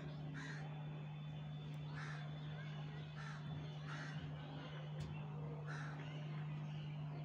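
Birds cawing, five or six short calls spaced irregularly about a second apart, over a steady low hum.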